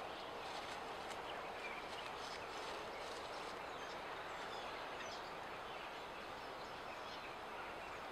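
Steady outdoor background noise, with a few faint high chirps and ticks scattered through it.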